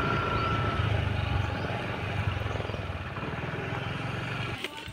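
Scooter engine running with wind and road noise while riding, slowly getting quieter toward the end as the scooter eases off.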